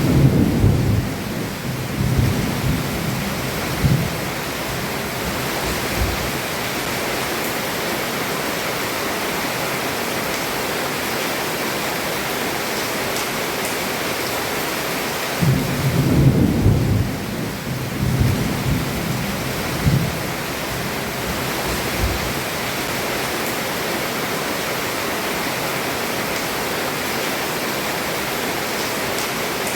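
Heavy rain falling steadily on a roof, with rolls of thunder rumbling at the start and again about halfway through.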